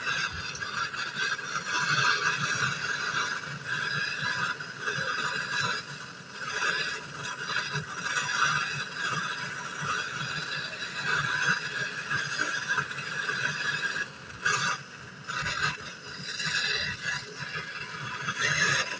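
Gas brazing torch flame hissing steadily as refrigerator compressor tubes are brazed, swelling and dipping unevenly, with a few light knocks.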